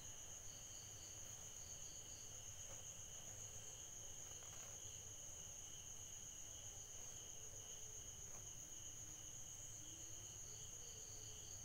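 Near silence with a faint, steady, high-pitched insect chirring running throughout. A few faint soft sounds come from hands working chicken through its marinade in a bowl.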